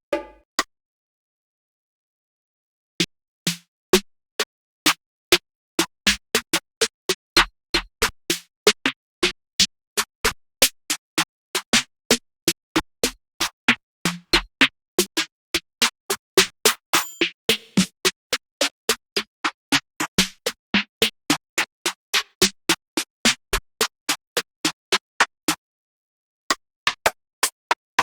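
Trap drum kit one-shot samples played one after another: short, dry electronic drum hits, each different and each standing alone, about two to three a second. A silent gap comes at the start, and a brief pause comes near the end.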